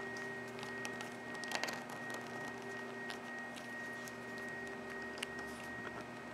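Faint handling sounds of a plastic watch case and resin band being pressed and fitted onto a watch module by hand: small scattered clicks and rubs, a few together about a second and a half in, over a steady background hum.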